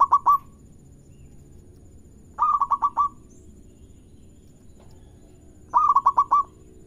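Zebra dove (local perkutut) cooing: short phrases of about five quick staccato coos, each phrase under a second long. The end of one phrase falls at the very start, and full phrases follow about two and a half seconds in and near the end.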